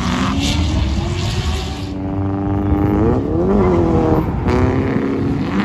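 Nissan 240SX's CA18DET turbocharged four-cylinder engine running hard. The revs climb, hold, rise and fall quickly about halfway through, dip briefly, then hold again.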